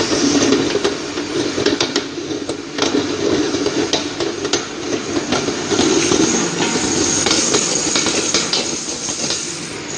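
GG 180 palm date paste grinding machine running as it grinds dates into paste: a steady motor hum with frequent short clicks and knocks throughout.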